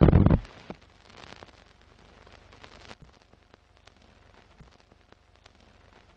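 Sound effects for an animated film-leader intro: a loud, deep boom at the start, then faint crackle with scattered sharp clicks like old film running through a projector, and a brief swell of noise about a second in.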